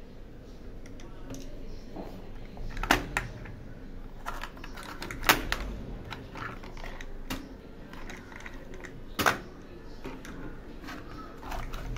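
12-gauge shotgun shells clicking against each other and the tray as they are picked up and stood on end, brass heads tapping: irregular small clicks with a few louder knocks.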